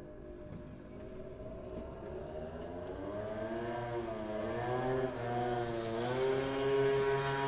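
Ambulance helicopter starting up: its engine and rotor sound grows steadily louder, with a pitched hum that sets in about three seconds in and wavers up and down as it builds.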